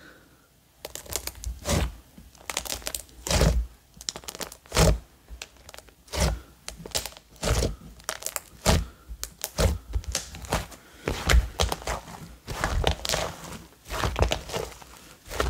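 Thick, glossy slime being stretched, pressed and folded by hand to inflate it, with air pockets giving irregular sharp pops and crackles, about one or two a second after a quiet start. The slime is turning tacky and whipped as it takes in air.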